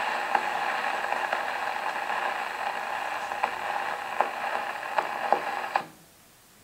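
Wind-up cabinet gramophone with the song finished: the needle hissing and crackling in the end groove of a shellac 78 record, with a click about every 0.8 seconds, once per turn of the record. The noise cuts off abruptly near the end as the soundbox is lifted.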